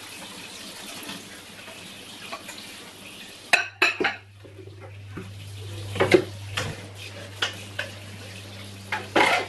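Plates and cups being washed by hand in a sink, clattering against each other and a stainless steel bowl as they are stacked, in a run of sharp knocks with water sloshing in between. The loudest clatters come a few seconds in.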